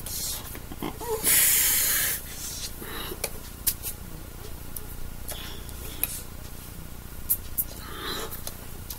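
Hands brushing and tapping together and sweatshirt sleeves rustling while signing, with a loud hiss lasting under a second a little over a second in, and a few sharp taps later.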